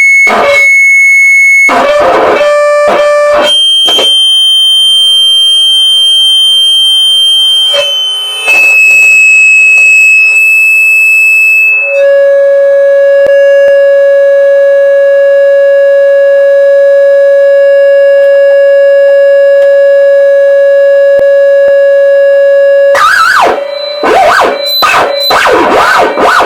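Loud electronic tones, each held steady and then switching abruptly to another pitch: a run of high beeps, then one long low steady tone held for about ten seconds, giving way near the end to warbling tones that slide up and down.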